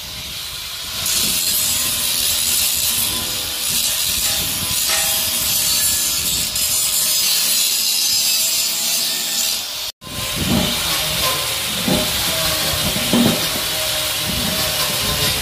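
Handheld angle grinder with an abrasive disc grinding the edges of a welded sheet-metal oil tank: a steady high hiss over the motor's whine. There is a brief break about ten seconds in, then the grinding resumes with some light knocks.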